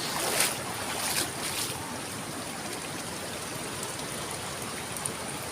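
River water rushing steadily, with a few brief soft noises in the first two seconds.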